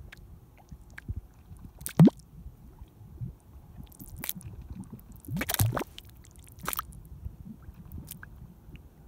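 Thick grey mud in a mud volcano's crater pool bubbling: gas bubbles swell up through the mud and burst with wet plops and squelches. The loudest is a short rising plop about two seconds in, with a cluster of bursts around five and a half seconds and smaller plops between.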